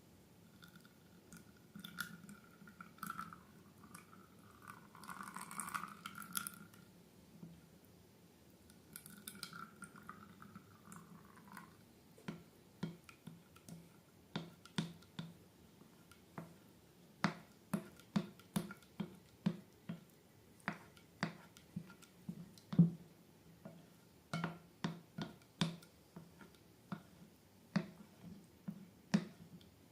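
Slime being handled and squished. Softer rustling with a faint squeak comes first. From about halfway it gives way to a run of short, sticky clicks and pops, one or two a second.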